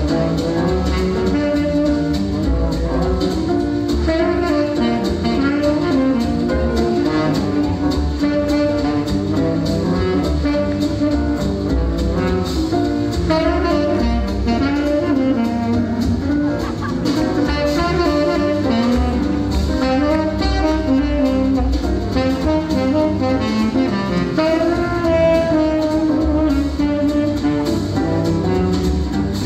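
Swing jazz music led by saxophones and brass over a drum kit, played throughout.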